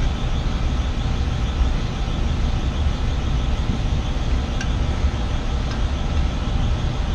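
Steady low rumble with a hiss over it, and a faint tick about four and a half seconds in.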